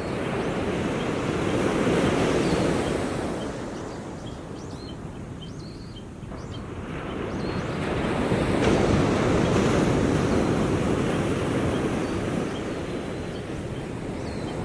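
Small waves washing onto the shore, swelling and falling away twice about seven seconds apart. Faint short high bird chirps run in the background.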